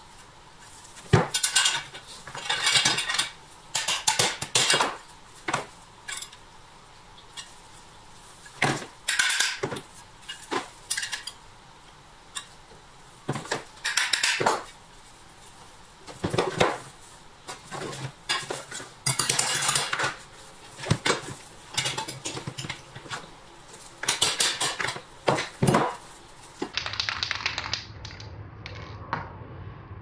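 Metal parts being handled: sharp clinks, clatters and short scrapes of metal on metal, in irregular bursts. About 27 seconds in, it gives way to a duller stretch with a low hum and a few softer knocks.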